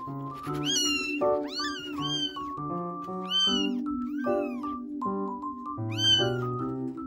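Young kittens mewing, about six high, thin cries that rise and fall in pitch, over background piano music.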